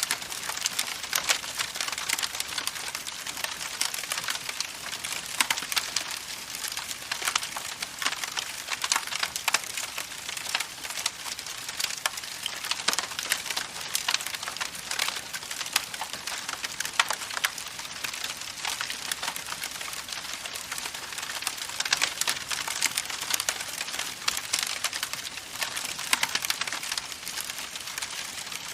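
Campfire burning, with a dense, continuous crackle of small pops over a steady hiss.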